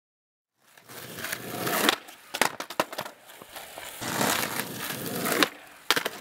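After a brief silence, skateboard wheels rolling over rough tarmac, broken by a cluster of sharp clacks of the board on the ground about two and a half seconds in. The rolling comes back and ends in more sharp clacks near the end as the skater pops a no comply 180.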